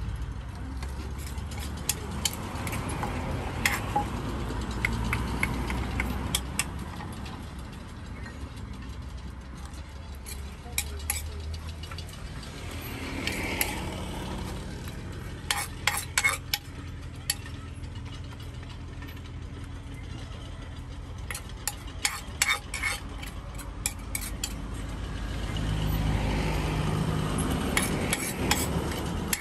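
Utensils clinking and scraping as salad is stirred and mixed: scattered sharp clicks, some in quick clusters, over a steady low hum of street traffic that swells near the end.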